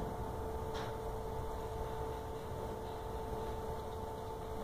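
Steady room hum with two steady whining tones, and a faint click about a second in.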